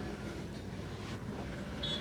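Steady rumble of road traffic, with a brief high chirp just before the end.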